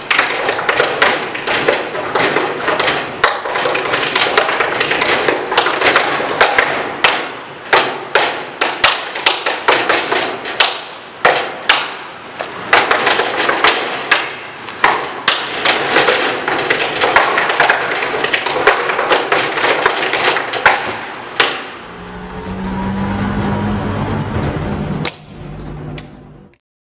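Dance steps striking the lid of a commercial dumpster: quick, irregular runs of hard taps and thuds in improvised rhythms. The taps stop about 22 seconds in, and a steadier low hum follows until the sound cuts off near the end.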